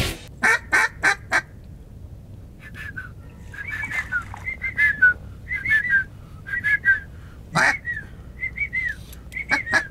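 Ducks' whistled calls: short falling whistles in quick pairs and triplets, repeated every half second or so, with a few harsher calls in the first second and one more about seven and a half seconds in.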